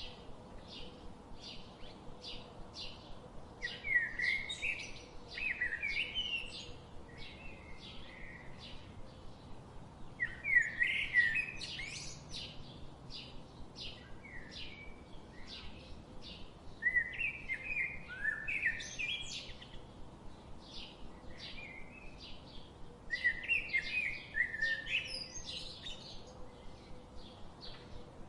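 Songbirds singing: a louder warbled song phrase of two to three seconds repeats about every six to seven seconds, over a steady run of quick, high chirps.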